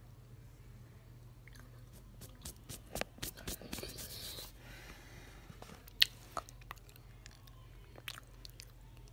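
A child chewing and crunching spicy chips, a scatter of short crisp crunches that bunch up about three to four seconds in, with one sharp click about six seconds in.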